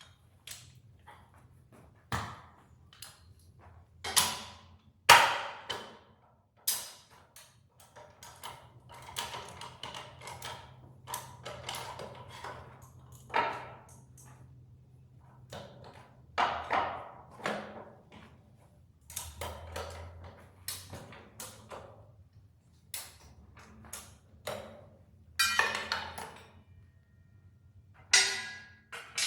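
Sped-up audio of farm machinery being moved: irregular sharp metal clanks and knocks, some ringing briefly, over a low steady engine hum.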